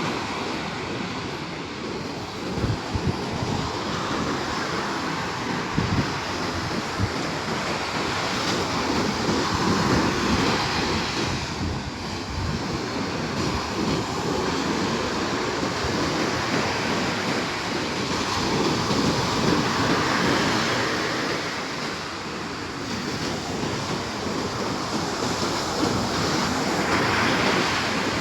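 Sea surf washing onto the beach, a steady rushing that swells and eases every several seconds, with wind buffeting the microphone in a few short low thumps in the first several seconds.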